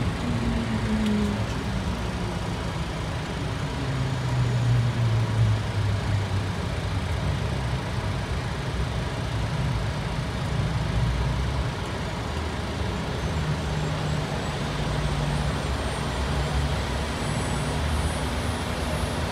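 Cockpit noise of a Dornier 328Jet rolling on the runway after landing: the steady rumble of its twin turbofans and wheels. The engine tones fall in pitch over the first few seconds as the engines spool down.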